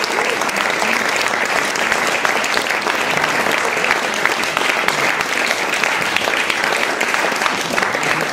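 Theatre audience applauding steadily, a dense continuous clapping at the end of a stand-up performance.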